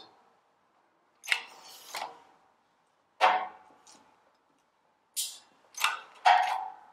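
About six sharp metallic cracks at irregular intervals, each with a short ring: a shop press forcing a seized valve guide out of a Ferguson tractor's cylinder head under rising pressure.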